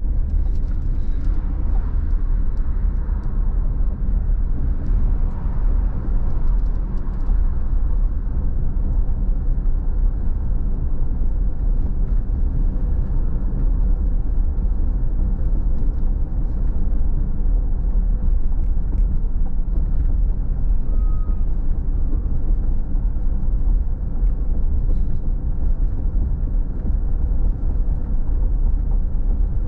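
Steady low rumble of a car's engine and tyres on the road, heard from inside the cabin while driving at a constant speed, with a few faint ticks scattered through it.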